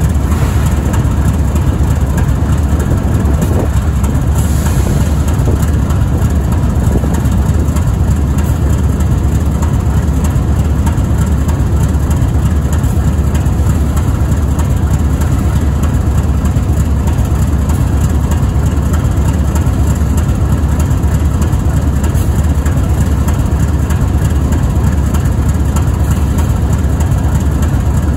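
GE ES44AC locomotive's GEVO-12 V12 diesel engine idling with a steady, low rumble.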